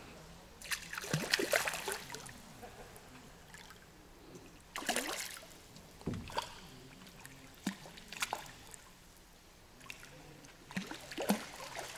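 Water splashing and dribbling in several short bursts, the longest about a second in, over a quiet steady background.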